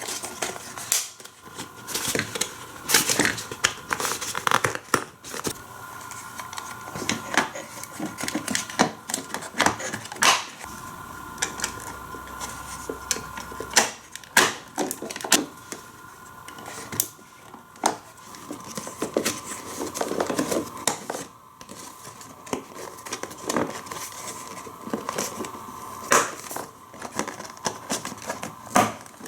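Hard plastic toy playset pieces and packaging being handled: irregular clicks, taps and plastic rustling, with a faint steady tone in the background.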